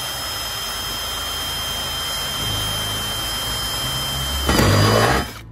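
Electric drill running steadily with a high motor whine as a twist bit bores through a car's plastic front bumper. It gets louder and dips slightly in pitch shortly before it stops suddenly near the end.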